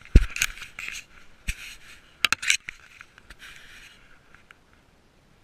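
Dry grass stems brushing and scraping against a cat-mounted GoPro as the cat pushes through tall dead grass, in irregular rustling bursts with a few sharp knocks of the camera. The rustling stops about four seconds in.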